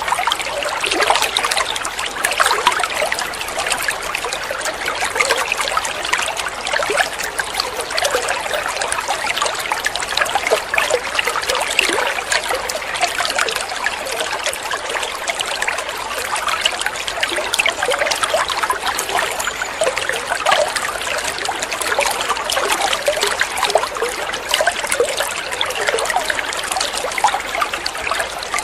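Running water trickling and splashing steadily, a continuous bubbly patter with no breaks.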